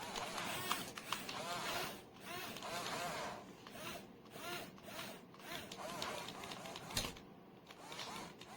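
Small electric gear motors of a KIDMARKT metal RC wheel loader toy whirring in a series of short runs, each rising then falling in pitch as the motor spins up and stops, with a sharp knock about seven seconds in.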